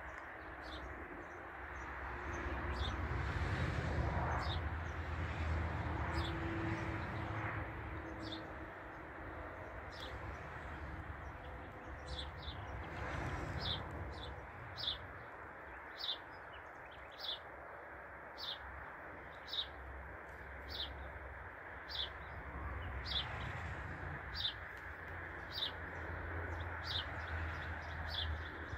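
A songbird chirping over and over, a short falling high note about once a second, clearest in the second half, over a steady outdoor hiss and low rumble.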